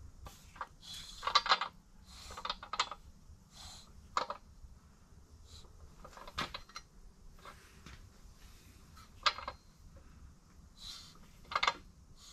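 Sharp metallic clinks and knocks, about six spread irregularly, as a BMW N55 crankshaft is turned by hand in its bare block during a dial-indicator runout check.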